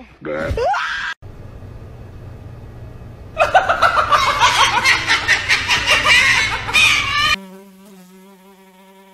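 A sheep gives a short, deep bleat, then a white cockatoo squawks and chatters loudly and rapidly for about four seconds. Near the end comes a steady, low, held tone.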